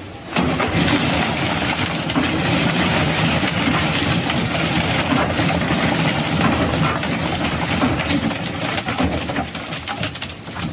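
Vehicle engine running steadily. It cuts in suddenly at the start and eases off near the end.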